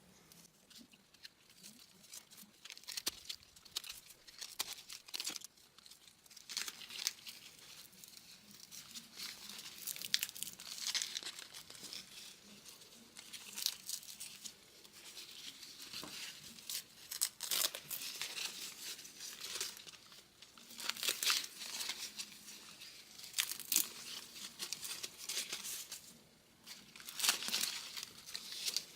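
Electrical tape being peeled and unwound from a car's factory engine wiring harness: irregular crinkling and tearing, with several louder stretches.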